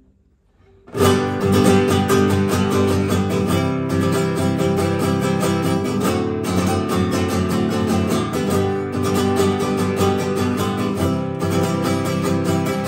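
Vivar Grandmaster GM04 nylon-string classical guitar, strummed in fast, even chord strokes. The playing starts about a second in, with short breaks every two or three seconds.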